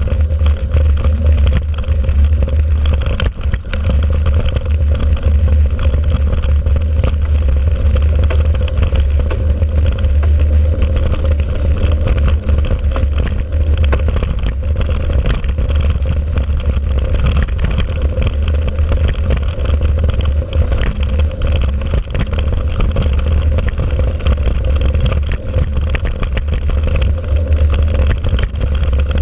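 Mountain bike riding along a sandy forest track, heard through a bike-mounted camera: a steady, heavy low wind rumble on the microphone, with tyre noise and frequent small knocks and rattles from bumps in the trail.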